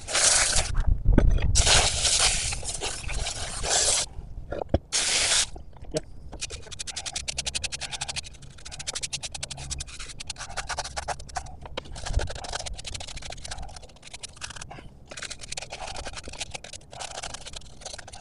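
A garden hose spraying water onto a rusty cast-iron drill press in several bursts, then a soapy brush scrubbing the metal in quick back-and-forth strokes.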